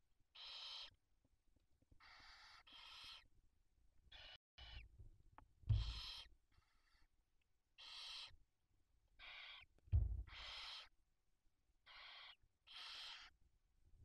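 Barn owl chicks giving hissing begging calls: about a dozen short hisses, each under a second long and coming at irregular intervals. Two low thumps of movement in the nest come about 6 and 10 seconds in.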